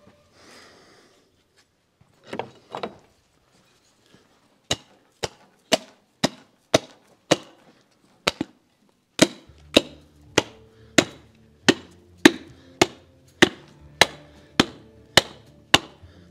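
Background music with a sharp, clipped percussive beat, about two hits a second, starting about five seconds in; a low bass line joins about nine seconds in.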